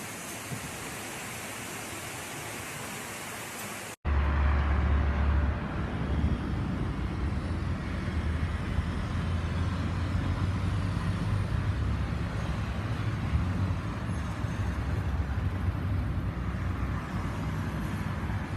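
Steady hiss of heavy rain. About four seconds in, an abrupt cut to a louder, steady low rumble.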